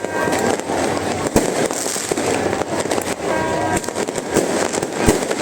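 Fireworks going off in a dense, continuous run of bangs and crackles, with two sharper, louder bangs about a second in and again near the end.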